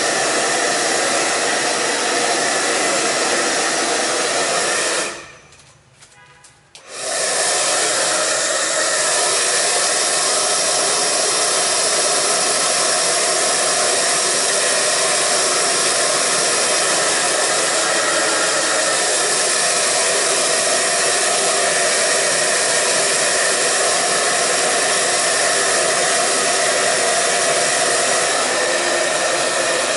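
Hand-held hair dryer blowing hair, a steady loud rush of air. About five seconds in it stops for roughly two seconds, then starts again and runs on steadily.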